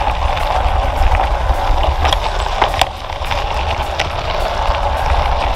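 Wind buffeting the microphone of a camera riding on a mountain bike, over the steady crunch of tyres rolling on a gravel path, with scattered sharp clicks and rattles.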